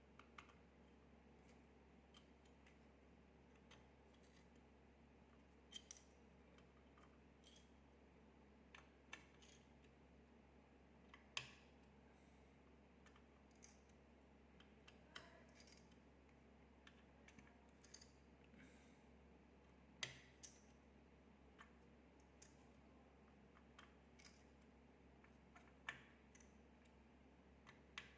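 Sparse, irregular small clicks and taps from hands working on an MSI RX 480 graphics card and its parts, over a faint steady low hum.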